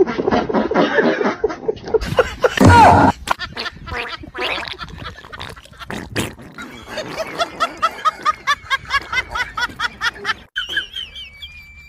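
Rapid gurgling vocal noises, then a quick run of short laugh-like calls, with a thin gliding whistle near the end.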